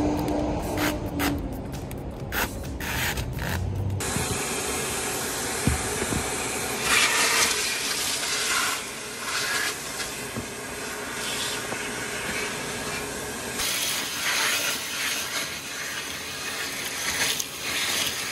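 A vacuum cleaner hose runs steadily, sucking broken window glass out of a car's leather seats, with irregular crackles as the pieces are drawn in. It starts about four seconds in, after a steady low hum.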